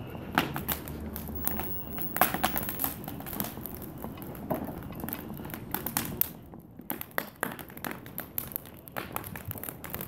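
Old fence and summerhouse wood burning fiercely in a metal garden incinerator bin, crackling and popping irregularly over a low rush of flame. The fire gets a little quieter in the last few seconds.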